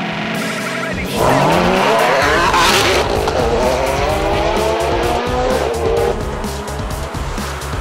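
Ferrari sports-car engine accelerating at full throttle in a quarter-mile drag run. The pitch climbs hard from about a second in, breaks at a gear change near three seconds, climbs again, and falls away about six seconds in. Background music plays underneath.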